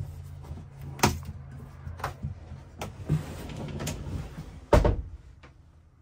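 Sliding barn-style bathroom door being moved along its track: a series of knocks and clicks, a sharp one about a second in, and a heavy thump a little before five seconds as it stops.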